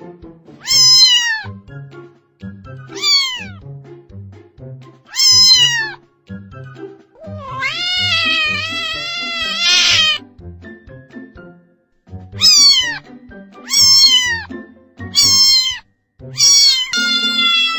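Kitten meowing: seven short high meows, each falling in pitch, with one long drawn-out meow of about two and a half seconds in the middle. Light background music with a steady beat underneath.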